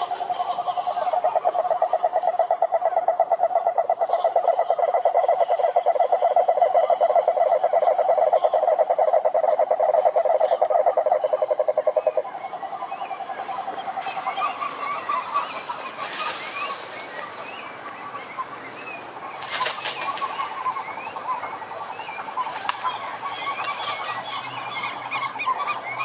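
Cururu toads calling: a long, loud, pulsing low trill from two overlapping toads. One stops about twelve seconds in and the other a couple of seconds later. After that come quieter short chirping calls and a couple of brief splashy noises.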